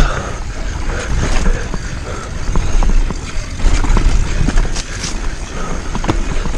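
Downhill mountain bike clattering over a dirt trail, with many irregular knocks and clicks and wind buffeting the microphone. The bike sounds terrible, which the rider blames on a failing hub.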